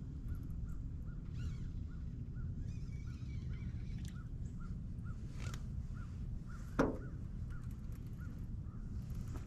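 Fishing reel being cranked in a steady retrieve, with a small squeak on each turn of the handle, about two to three a second, over a low steady rumble. There is one sharp knock about seven seconds in.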